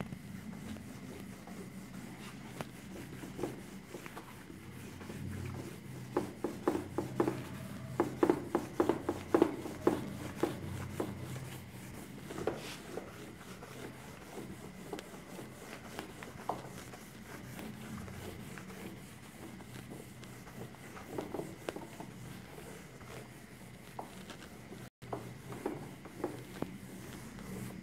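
Whiteboard eraser rubbing across a whiteboard in many short wiping strokes, quickest and loudest around the middle, fewer towards the end.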